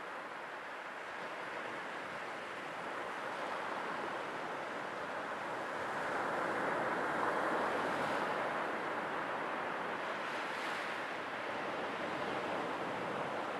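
Sea waves washing in, a steady rushing hiss that swells louder around the middle and then eases.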